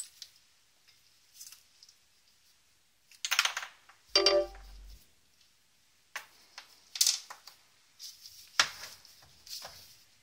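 Hilti TE12S hammer drill and its chuck parts being handled on a workbench: scattered clicks, knocks and rattles, with a short ringing metal clink about four seconds in.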